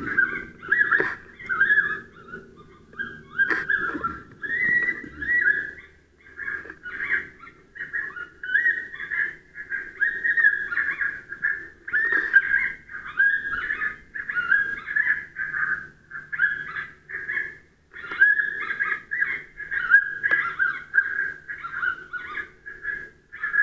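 FoxPro electronic predator caller playing an animal distress call: a long string of short, high cries, several a second, with a couple of brief pauses.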